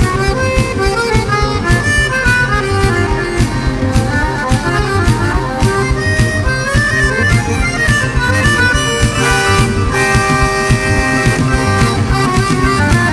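Bayan (Russian button accordion) leading a rock band in an instrumental passage: quick accordion runs over drums, electric guitar and bass guitar. About ten seconds in, the accordion holds long chords.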